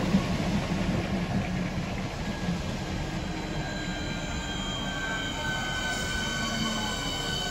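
Southeastern Networker electric multiple unit moving slowly along the platform: a rumble of wheels on the rails that eases off, then a thin high squeal of several tones coming in about halfway through and holding.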